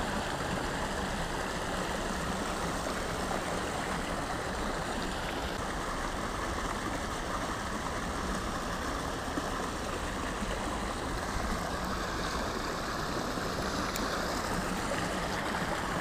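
Creek water rushing over a small drop, a steady, even rush of flowing water.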